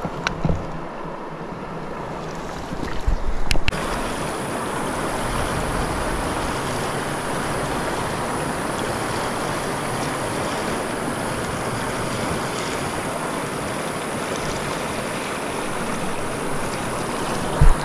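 River water rushing steadily close to the microphone. A few knocks and bumps in the first four seconds, after which the rushing gets louder and brighter and holds steady.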